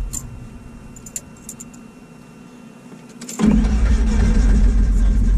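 A few light clicks, then about three and a half seconds in the light aircraft's four-cylinder Lycoming piston engine is cranked and suddenly catches, running loudly and steadily. It is a cold start, on a fourth attempt after several failed ones.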